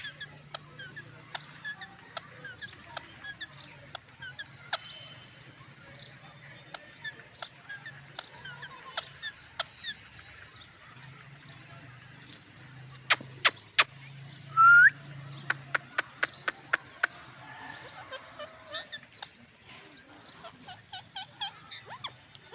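Indian ringneck parrots chirping with many short calls, and one loud rising squawk about fifteen seconds in. A run of sharp clicks comes just before and after the squawk.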